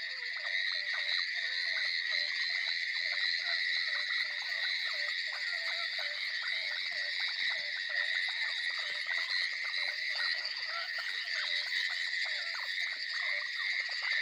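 A dense chorus of frogs croaking: short overlapping calls, several each second, over a steady high-pitched trilling drone.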